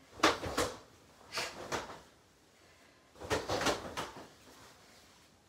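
Sharp snaps of karate gi cloth and bare feet on foam mats as two people throw fast snap kicks, coming in three quick clusters of two or three cracks each, about a second or two apart.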